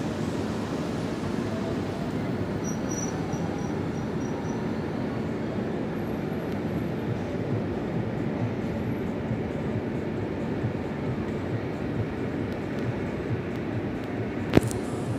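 A steady, mostly low-pitched outdoor noise with no clear single source, a few faint high chirps early on and one sharp click near the end.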